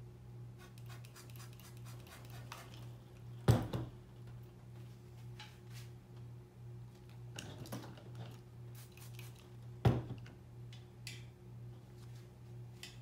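Brewing gear handled on a table over a steady low hum: light clicks and scratches as a plastic spray bottle and a racking cane are handled, with two sharp knocks, about three and a half and ten seconds in.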